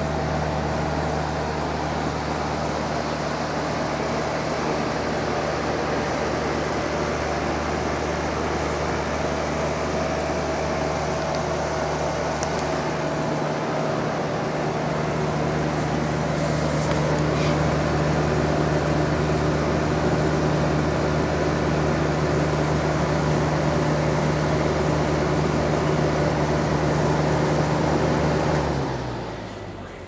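Friedrich packaged terminal air conditioner (PTAC) running: a steady hum with a rush of air. Near the end it shuts off, the hum falling in pitch and fading as the unit winds down.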